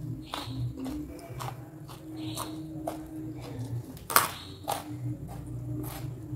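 Close-miked chewing of crunchy food, with a sharp crunch every half second or so and the loudest crunch about four seconds in.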